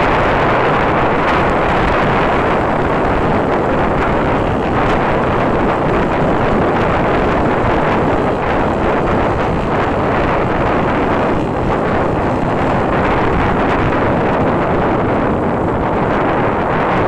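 Steady, loud wind rush on the microphone of a moving motorcycle, with engine and road noise beneath it.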